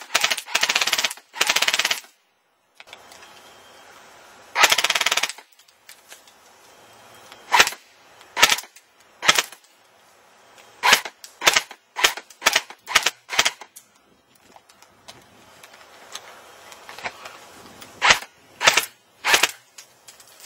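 Airsoft gun firing: two quick bursts of rapid fire at the start and another about five seconds in, then about a dozen single shots spaced out over the rest.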